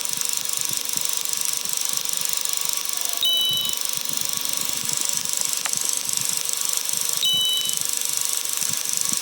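Sped-up sound effects: a steady hiss with a short two-tone electronic beep about every four seconds, twice.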